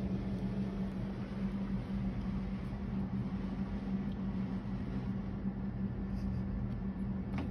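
A steady low mechanical hum with an even hiss beneath it, like a running fan or appliance motor.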